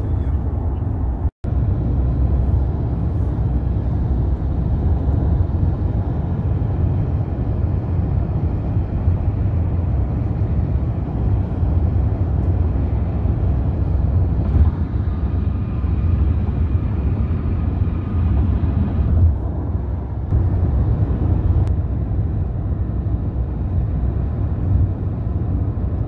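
Steady road noise inside a moving car's cabin: a low rumble of tyres and engine. It drops out for an instant about a second and a half in.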